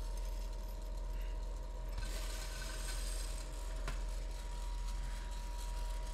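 Roest L100 Plus sample coffee roaster running with a steady hum and a faint two-note whine while a batch of green coffee beans is charged into it. About two seconds in, a brighter rushing noise of the beans going in and tumbling starts and holds, and there is a single sharp click near four seconds.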